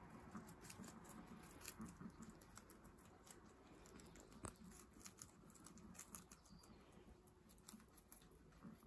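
Guinea pigs chewing crisp pak choi stalks and leaves: faint, irregular quick crunching clicks.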